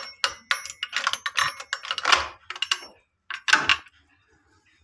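Metal keys clicking and jangling on their ring as a key is worked in a drawer lock, then a louder rattle about three and a half seconds in as the drawer is pulled open.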